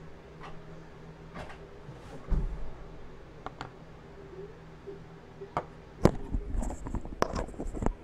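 Handling noise from a gaming headset: a dull thump a little over two seconds in, then a cluster of clicks and low bumps in the last two seconds as the headset is picked up off the desk.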